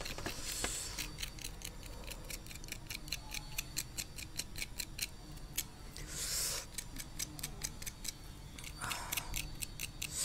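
A sharp pick scratching and tapping at brittle dalgona honeycomb sugar candy, a run of small uneven ticks several times a second. Two short breathy puffs come about six and nine seconds in.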